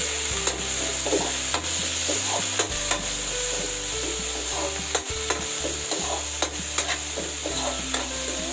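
Metal ladle stirring and scraping tomatoes, onion and garlic around a hot metal wok, with irregular clicks of the ladle against the pan. A steady sizzle of frying runs underneath.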